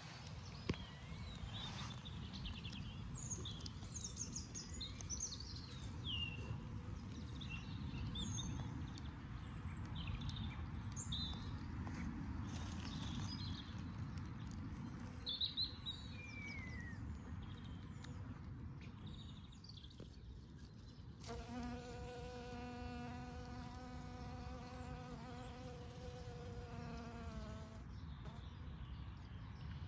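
Small birds chirping and singing for the first twenty seconds. Then a honeybee buzzing close by, a steady hum for about seven seconds whose pitch drops slightly just before it stops. A steady low rumble runs underneath.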